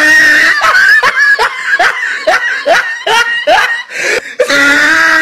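A woman laughing hard in a quick run of short bursts, about three a second, with longer high-pitched laughs at the start and near the end.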